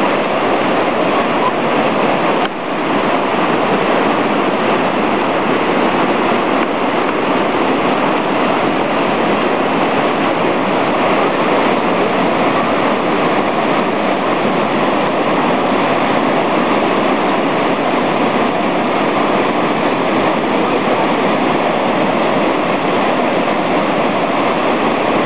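River rapids rushing steadily, loud whitewater pouring over a rock ledge, with a brief dip about two and a half seconds in.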